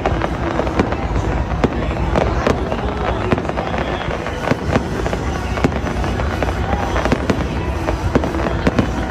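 Fireworks display going off in quick succession: dense, overlapping bangs and crackles with no pause, several a second, with music playing underneath.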